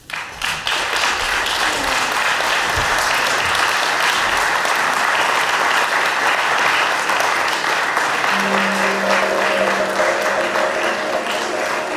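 Audience applauding, starting suddenly at the close of a lecture and holding steady. Music comes in under the applause about eight seconds in.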